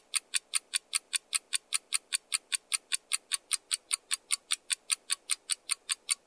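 Clock ticking, fast and even, about five sharp ticks a second.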